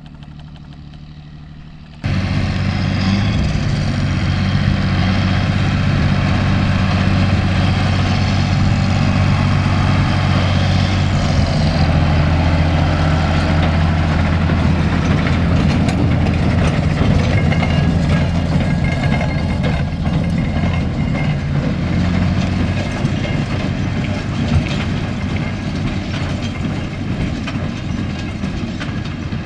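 John Deere 8120 tractor's diesel engine running steadily under load while it pulls a Claas large square baler, with rapid rattling and clattering from the baler over the engine. The sound jumps abruptly louder about two seconds in and eases a little near the end.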